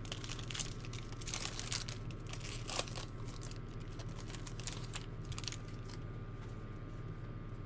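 Wrapper of a 2013 Bowman Draft Picks & Prospects card pack crinkling as it is torn open and the cards handled: a run of short rustles that dies away about five and a half seconds in, over a steady low hum.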